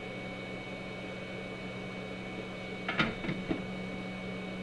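Steady low electrical hum with a faint high-pitched whine above it.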